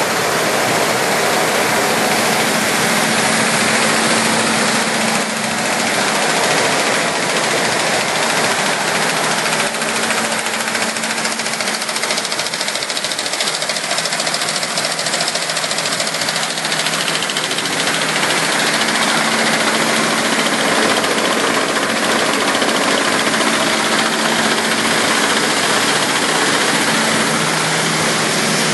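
Bobst Media folder-gluer running at production speed, about 50,000 pocket folders an hour: a steady, dense mechanical whir and clatter of belts and carriers with a constant hum underneath.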